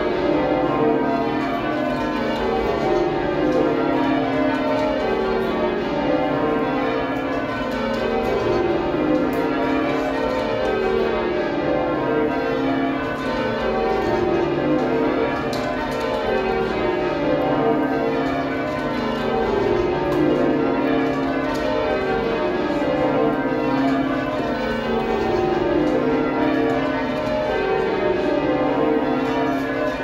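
The ring of twelve heavy church bells at York Minster, cast in 1925, being rung full-circle by a band on the ropes: steady rows of strikes sweeping down in pitch from treble to tenor, one row after another without a break.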